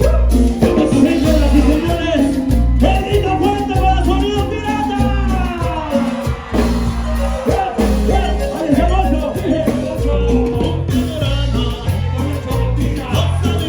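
Loud Latin dance music with a steady, pulsing bass beat and a singing voice.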